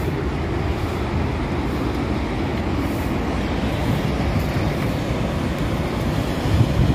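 Steady rushing of a Himalayan river's waterfall as the water plunges through a rock gorge into a churning pool.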